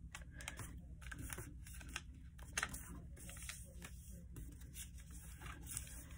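A sheet of paper being folded by hand: faint rustling with small creasing clicks as the flap is pressed toward the centre crease.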